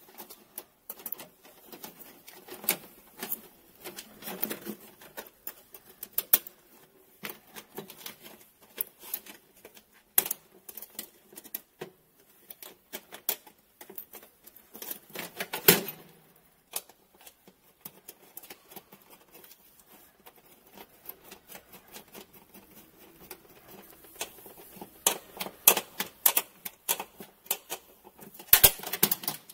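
Irregular clicks, taps and rustles of hands working wires and a hand tool inside a metal electrical cabinet while the ground wire is connected. There is a sharper knock about midway and a denser run of clicks near the end.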